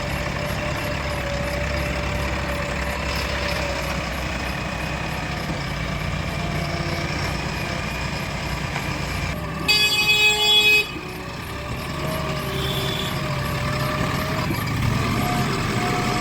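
Heavy diesel engines of a backhoe loader and tractors running steadily at work. About two-thirds of the way in a vehicle horn sounds loudly for about a second.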